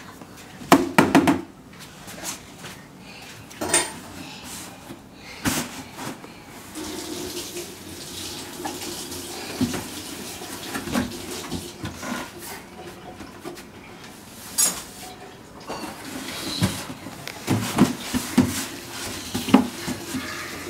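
Cardboard pet carrier being knocked about by a toddler climbing into it and pushing its flaps: irregular thumps, bumps and scrapes, the loudest cluster about a second in, over a steady background hiss.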